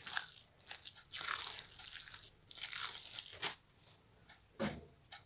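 Minced-meat filling with tomato paste being mixed by hand in an enamel basin: uneven wet strokes of the mass being worked, then a sharp knock about three and a half seconds in and a duller knock near the end as a spoon meets the basin.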